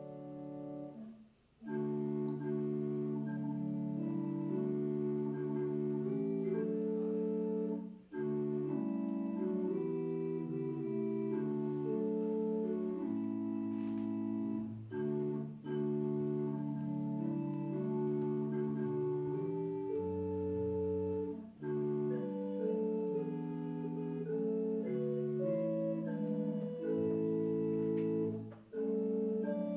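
Organ playing slow, held chords in phrases, with short breaks between phrases about a second and a half in, around eight seconds, around twenty-one seconds and near the end.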